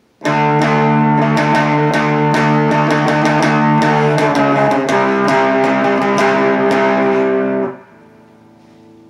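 Electric guitar played through an MXR Prime Distortion pedal set almost clean, distortion at about 10% with tone and output full: strummed chords, changing chord about halfway, then cut off abruptly near the end, leaving a faint amp hum.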